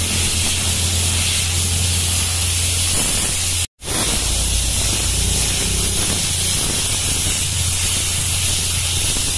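Compressed-air lance blasting loose dust and grit off a freshly milled asphalt road surface, a loud steady hiss over a steady low engine hum. The sound cuts out briefly just under four seconds in, then resumes.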